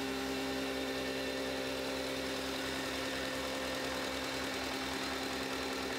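Small stationary engine driving a grain mill, running steadily at constant speed with an even drone and a fine, rapid low pulsing.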